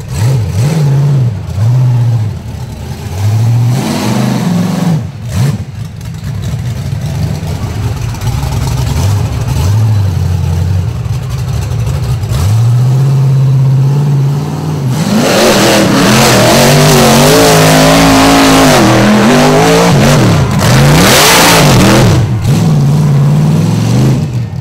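Chevy V8 of an 800-horsepower rock bouncer buggy revving in repeated short bursts on a steep climb, then held near full throttle for about seven seconds in the second half, the pitch wavering up and down.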